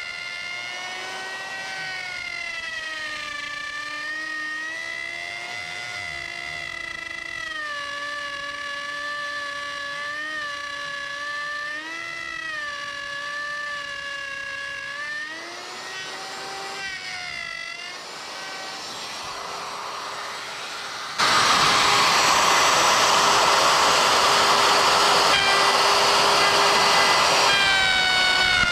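Handheld router running and cutting along a template, its motor whine dipping and wavering in pitch as the load changes. About 21 seconds in the sound jumps to a much louder, rougher cutting noise.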